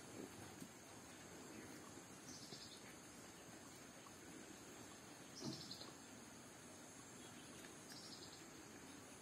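Faint outdoor ambience: a steady high insect hiss, with a short high chirp repeated three times about every two and a half seconds, and a soft thump about five and a half seconds in.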